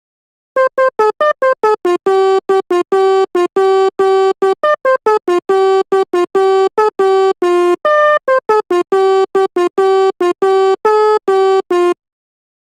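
Sampled Indonesian 'telolet basuri' bus horn played from a music app in a fast melody of short clipped notes. Most notes repeat one pitch, with brief steps up and down. It starts about half a second in and stops shortly before the end.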